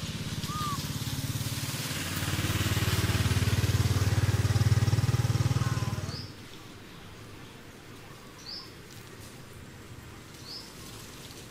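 An engine running, growing louder from about two seconds in and cutting off abruptly about six seconds in. After that, a few short high chirps over a low outdoor background.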